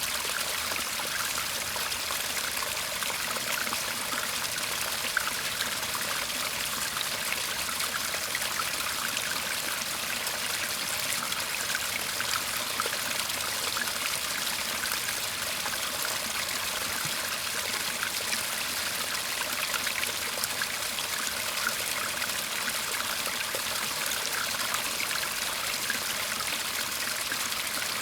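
Shallow Japanese-garden stream babbling and trickling steadily, with a constant rush of water dotted with small quick splashes and gurgles.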